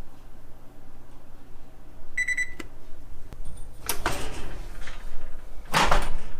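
A single short electronic beep from an oven's control panel about two seconds in, followed by a click, then two louder short bursts of noise near the end.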